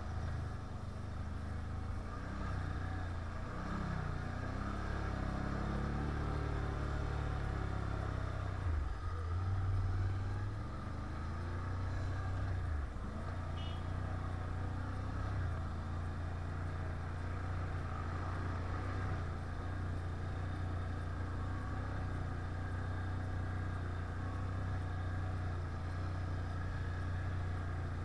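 Can-Am 1000 quad's V-twin engine running under way off-road, its revs rising and falling through the first dozen seconds, then holding fairly steady.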